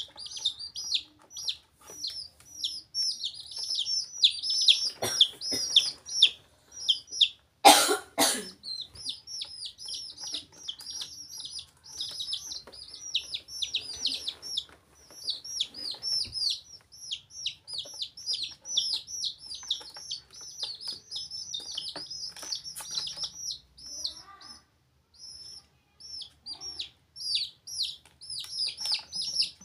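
Baby chicks peeping nonstop, a dense stream of short, high, falling chirps from several birds at once. About eight seconds in, a brief loud bump.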